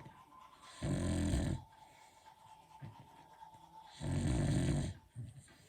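A sleeping beagle snoring: two loud snores about three seconds apart, each under a second long, with quieter breathing in between.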